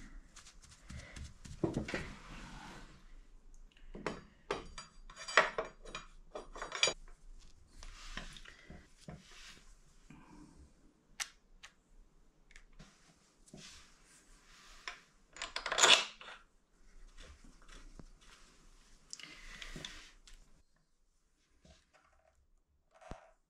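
Small metal brake parts (caliper bolts, pins and a spring clip) clinking and clicking as they are handled, then a hand tool tapping and clicking against a motorcycle's front Brembo brake caliper. The clinks come in scattered runs, with the loudest clatter about two thirds of the way through.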